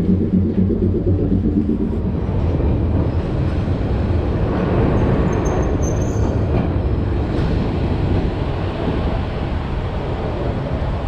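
Ventotto tram, Milan's 1928-built Class 1500, running along street track: a steady low rumble of steel wheels on the rails. A pitched hum runs through the first couple of seconds, then fades into the rumble.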